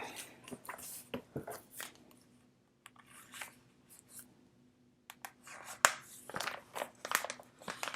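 Photo cards and plastic binder sleeves being handled: scattered short rustles, slides and light clicks, with a quiet stretch in the middle.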